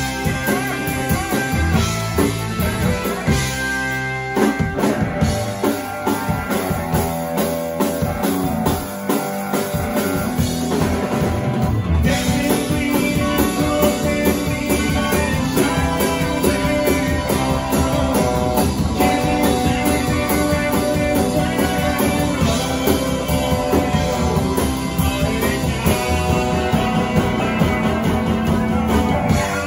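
Live electric blues band playing: electric guitar, electric bass and drum kit, with a singer at the microphone. The band comes back in fuller about twelve seconds in.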